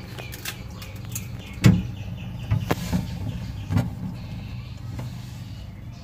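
Refrigerator running with a steady compressor hum and a faint trickling of refrigerant inside the evaporator, with a few light knocks from handling, the loudest under two seconds in. The evaporator stays uncooled with the compressor on, which the technician reads as a possible blockage.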